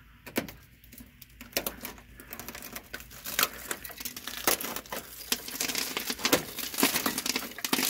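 Flaky rust scale and rotted steel sheet metal on a car's underbody crackling and snapping as fingers pick and peel it away, in a rapid irregular run of small clicks that thickens after a few seconds. The metal is rusted through.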